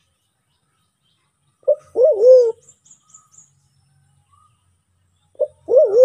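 White-faced cuckoo-dove (Sulawesi black pigeon, Turacoena manadensis) calling twice, about four seconds apart. Each call is a short note followed by a low, wavering hoot, and the second begins near the end. Faint high chirps of small birds follow the first call.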